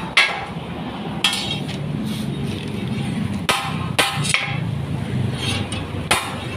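Hammer striking a square steel bar laid on a steel block, straightening it: sharp metallic blows at uneven intervals, about six in all, two of them close together about four seconds in.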